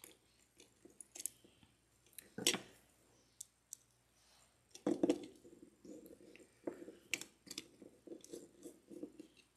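Scattered light clicks, taps and rattles of small metal parts being handled as a Yamaha outboard carburetor's float and needle are fitted. A screwdriver works a small screw into the carburetor body.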